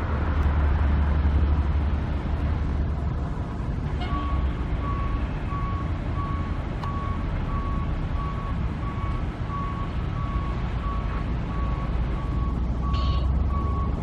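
Reversing alarm of a construction vehicle beeping a steady single tone about twice a second, starting about four seconds in, over a low, steady rumble.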